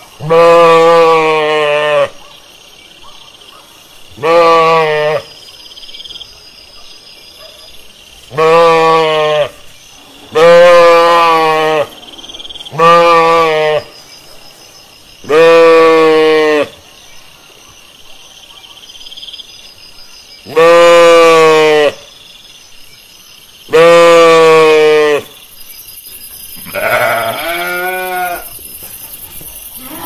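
Sheep bleating: about eight loud, drawn-out bleats a few seconds apart, each lasting one to two seconds, followed by a couple of fainter bleats near the end.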